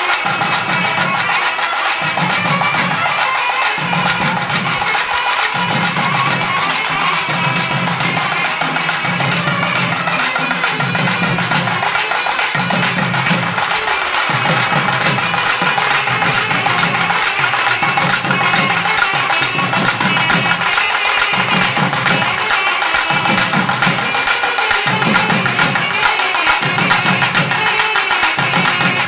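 South Indian temple drum ensemble: barrel drums played in a fast, steady beat of sharp strokes over deep pulsing booms, with a steady ringing above.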